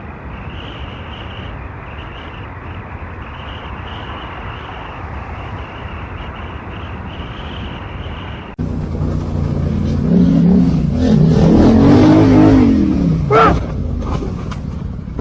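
Steady rushing noise, then, after an abrupt change, a car engine revving up and falling back, louder, with a brief high call near the end.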